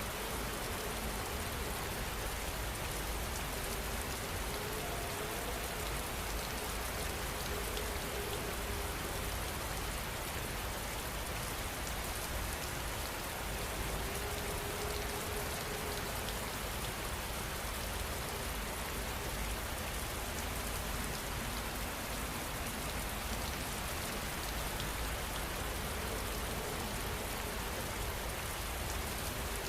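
Steady rain falling, an even, unbroken patter at constant strength. A faint wavering tone comes and goes underneath it.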